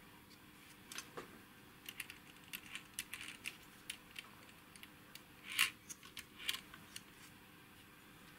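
Light, scattered clicks and taps of a partly disassembled aircraft engine temperature indicator's metal chassis and wiring being handled and turned over in the hands. The loudest click comes about five and a half seconds in.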